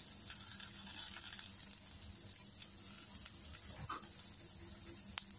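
Faint steady sizzle with scattered light crackles: chana dal, coriander seeds and other whole spices roasting in a little oil in a steel pan on a low flame.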